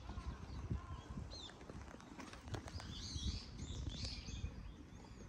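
Small birds chirping outdoors, a couple of short calls early and then a busy flurry of high chirps around the middle, over a low rumble.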